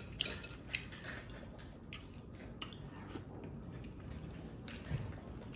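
Close-up eating sounds of a seafood boil: boiled shrimp being peeled by hand and chewed, a scatter of small wet clicks and crackles.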